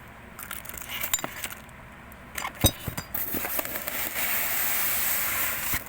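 Ceiling fan packaging and parts being handled during unboxing: a few light clicks and knocks, one sharp clink about two and a half seconds in, then a steady rustling from about three seconds on.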